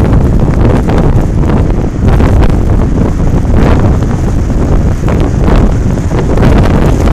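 Blizzard wind buffeting the microphone, a loud low rumble that swells and dips with the gusts.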